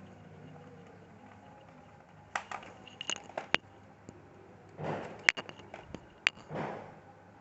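Sharp clicks and light taps of small screws, a screwdriver and plastic laptop casing parts being handled during reassembly, with two soft rustling swells between them.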